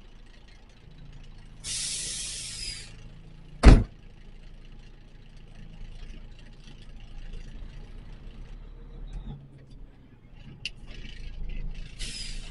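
Truck engine running low and steady, with short bursts of compressed-air hiss typical of truck air brakes, one about two seconds in and one at the very end. A single loud, sharp thump a little before four seconds in is the loudest sound.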